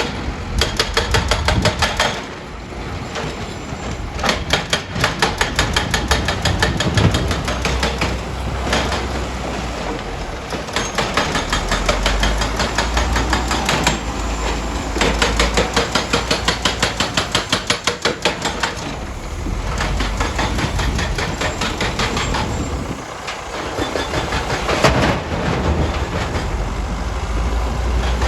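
Heavy diesel earthmoving machinery working, with a low engine rumble and repeated bursts of rapid, evenly spaced metallic clanking.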